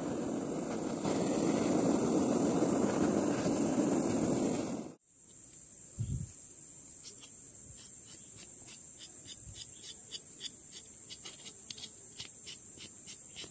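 A gas blowtorch flame hissing steadily while singeing the fur off a squirrel carcass, cut off abruptly about five seconds in. Then a knife blade scrapes the charred fur in quick repeated strokes, heard as rapid light ticks, over a steady high buzz of insects, with a soft thump about a second after the cut.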